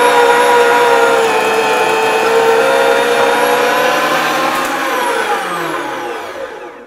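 Electric meat grinder motor running steadily as it grinds beef and cotechino sausage, with a whine. It is switched off about four and a half seconds in, and the whine falls in pitch and fades as the motor slows to a stop.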